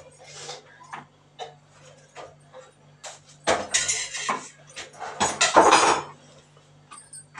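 Kitchen utensils clattering: scattered knocks and clinks, with two louder, rattling stretches about three and a half and five seconds in.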